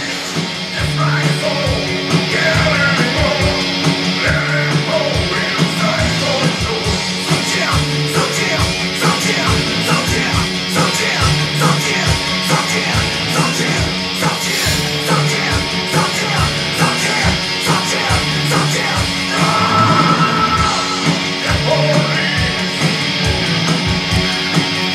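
Blackened horror punk music playing: a fast, steady drum beat under guitars and vocals.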